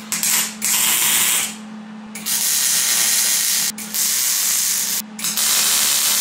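Wire-feed welder tack-welding a steel spring perch onto a rear axle tube: the arc's even crackling hiss comes in about five bursts, each from a fraction of a second to about a second and a half, stopping and restarting. A steady low hum runs underneath.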